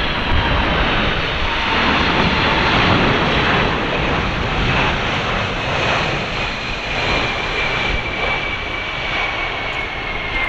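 Boeing 747-400's four turbofan engines on final approach, a steady jet roar with a high whine that falls slowly in pitch as the airliner passes low overhead.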